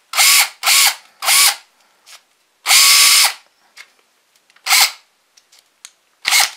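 DeWalt 18V three-speed cordless hammer drill run in six short trigger pulls, its motor spinning up with a rising whine and winding down each time; the longest pull comes near the middle. Faint clicks fall between the pulls. It is running on a newly built 5S 18650 lithium-ion pack.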